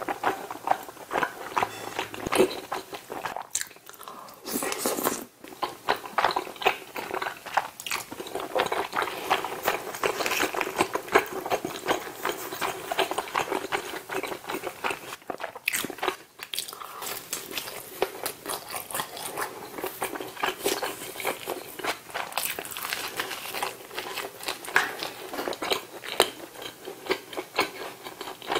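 Close-miked wet chewing and smacking of mouthfuls of spicy tteokbokki rice cakes and pizza, with many small clicks and crunches, pausing briefly twice.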